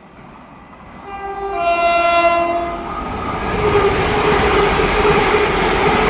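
Electric passenger train sounding its two-tone horn, a higher note then a lower one, for about two seconds. The train's running noise then builds and stays loud as it comes through.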